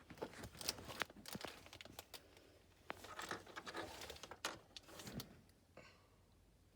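Faint scattered clicks and taps with soft rustling in between.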